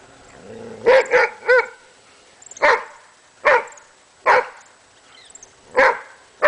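Dog barking at a cobra it is confronting: three quick barks about a second in, then single sharp barks roughly once a second.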